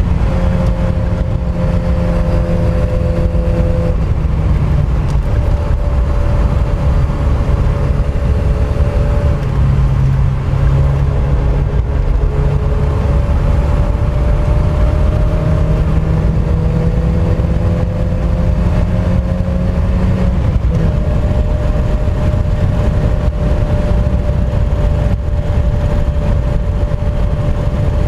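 Mazda MX-5 Mk1's four-cylinder engine running hard on track. Its note climbs slowly and changes pitch abruptly several times.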